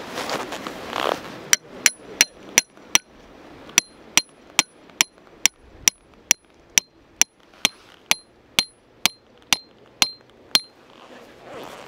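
A hammer driving a steel tent stake: about twenty sharp, ringing metal blows, a little over two a second, with a short pause after the first five. There is some rustling before the first blow.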